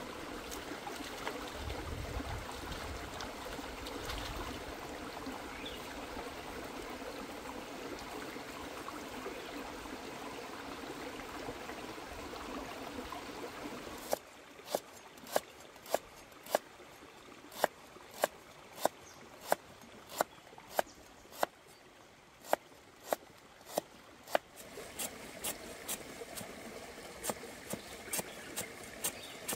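Shallow stream running over rocks for about the first half. Then a cleaver chopping lemongrass on a wooden chopping block, sharp chops about two a second. Near the end the running water is back under softer chops.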